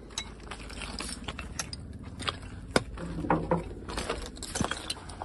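Footsteps crunching over broken slate and brick rubble, with irregular clicks and scrapes of debris shifting underfoot; one sharp click about halfway through is the loudest.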